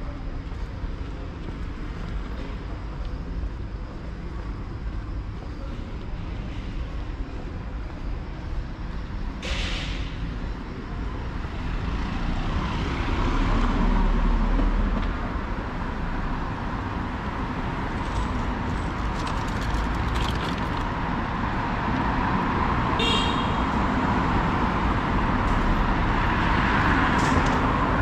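City street traffic: a steady hum of passing cars, growing louder about halfway through. A brief hiss about ten seconds in.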